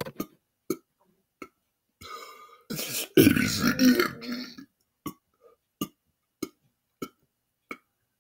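A man belching: a shorter, fainter belch about two seconds in, then one long, loud belch lasting well over a second. Short sharp clicks sound before it and then about every half-second after it.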